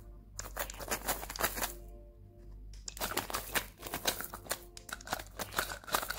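Crinkly clear plastic candy packaging being handled and squeezed in the fingers, in two runs of rapid crackling, over soft background music.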